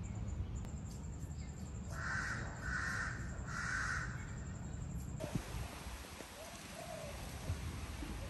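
A crow cawing three times in quick succession, each caw harsh and about half a second long.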